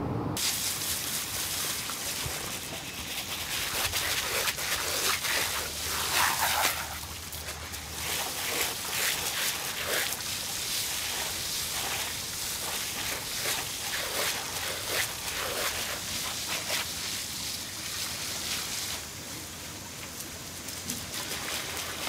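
Water spray hissing and spattering onto wet paving: a steady hiss broken by irregular splashes.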